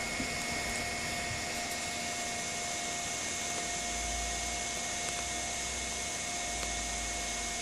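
Steady electric whir of a 3D printer's cooling fans, with two thin, steady whining tones over an even hiss.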